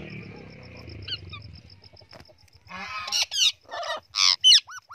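A group of pet parrots, ringneck and Alexandrine parakeets with a blue-and-gold macaw, squawking and screeching. The calls are faint at first. From about three seconds in come several sharp, loud calls, some sliding up or down in pitch.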